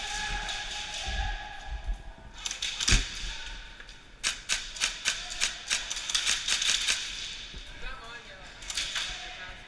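Airsoft guns firing, strings of sharp clacking shots, densest from about four to seven seconds in, with one loud shot about three seconds in.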